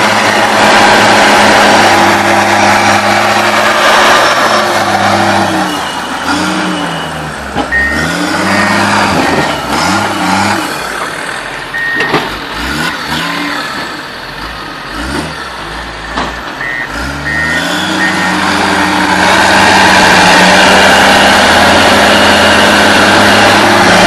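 Heavy diesel engines of a Komatsu crawler dozer and a bogged-down forestry skidder working hard as the dozer pushes the skidder out of mud. Through the middle the engine pitch rises and falls again and again, then settles back to a steady loud drone, with a few short high beeps of a reversing alarm.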